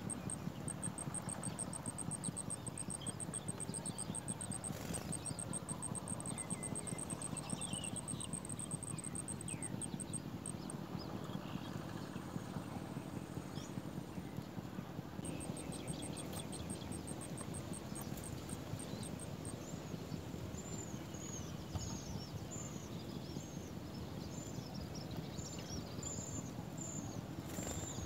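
Outdoor ambience with a steady low rustling hiss and a fast, even, very high ticking through the first ten seconds and again briefly past the middle. A run of short, high, falling bird chirps fills the last third.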